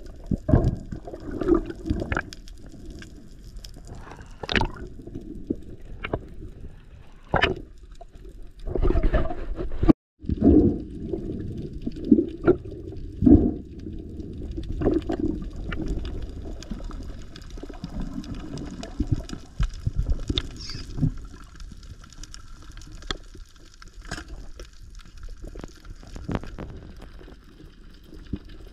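Muffled underwater sound heard through an action camera's waterproof housing: water moving and bubbling, with sharp knocks and clicks now and then. The sound drops out briefly about ten seconds in.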